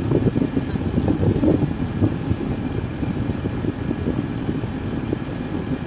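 Steady, rough rumble of a moving vehicle, its engine and road noise running continuously.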